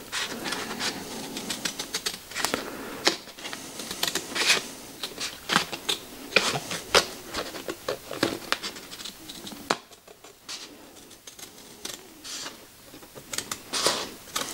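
Straight scissors cutting gasket paper: a series of irregular snips with the rustle of the sheet, thinning out for a couple of seconds past the middle.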